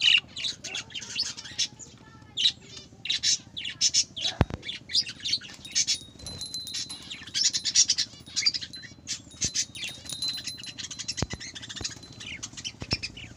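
Budgerigars chattering: a dense run of rapid chirps and warbling calls, with a few sharp clicks in between.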